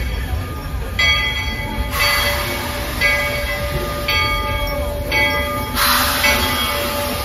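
Walt Disney World Railroad Baldwin steam locomotive Lilly Belle rolling slowly into a station with a low rumble, its bell ringing about once a second. A loud hiss starts near the end.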